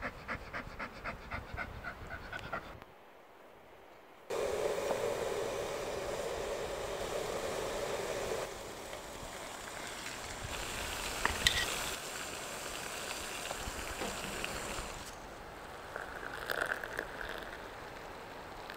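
A Finnish Lapphund panting quickly, about five pants a second, for the first few seconds. Later a sharp metal clink as the lid comes off an enamel mug on a small camp stove, and near the end water pouring from the mug.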